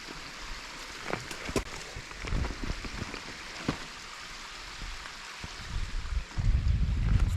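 Loose, crumbling rock clicking and crunching as a hiker scrambles over it, scattered irregular clicks over a steady hiss. A louder low rumble on the microphone comes in near the end.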